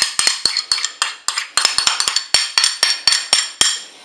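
A utensil clinking and scraping against a bowl in quick, irregular strokes, several a second, as a creamy mayonnaise sauce is scraped out onto a pasta salad; the clinks stop about three and a half seconds in.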